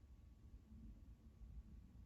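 Near silence: faint low room rumble.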